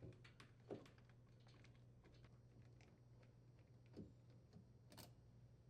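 Faint clicks and light knocks of a driver working the dishwasher's mounting bracket screws, otherwise near silence. There is a soft knock under a second in, another about four seconds in, and a sharper click about a second later.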